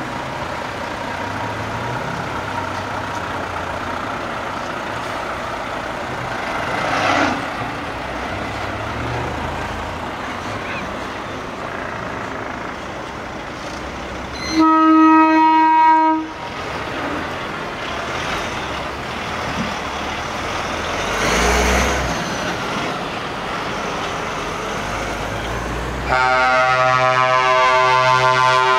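Heavy trucks driving past one after another, their diesel engines running, with two brief swells as trucks pass close. A truck horn blasts for about a second and a half in the middle. A deeper, louder multi-tone horn starts near the end and holds on.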